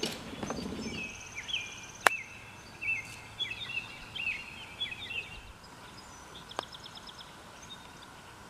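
Birds chirping and calling over quiet open-air background, with a sharp click about two seconds in and a fainter one later.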